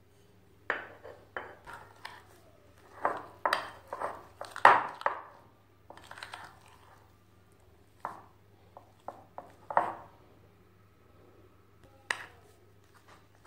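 A metal fork scraping and clinking against a ceramic plate in irregular strokes as it mashes boiled egg yolk. A low steady hum runs underneath.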